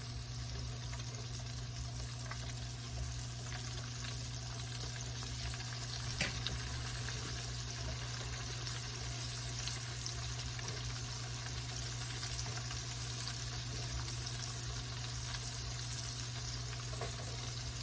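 Battered oyster mushrooms sizzling in hot oil in a skillet: a steady crackling fry, with a steady low hum underneath.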